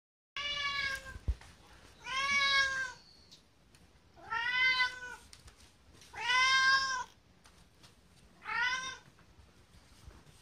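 A domestic cat meows for food five times in a row. The meows are drawn-out and come a second or two apart, each rising and then falling in pitch, and some sound close to "gohan" ("food"). They are demanding, hungry begging. A brief low knock comes just after the first meow.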